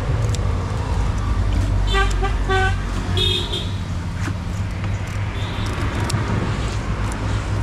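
Steady low engine rumble of road traffic, with a quick run of short vehicle-horn toots about two seconds in.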